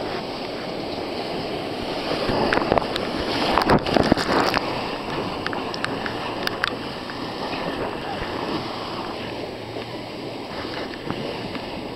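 River rapids rushing and splashing around an inflatable raft, with waves slapping the tube hardest about three to four seconds in.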